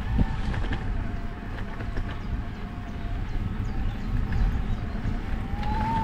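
Mountain bike rolling on a gravel track: a steady low rumble of tyres and wind on the microphone, with small rattles and clicks. Over it runs a thin steady whine that rises in pitch near the end.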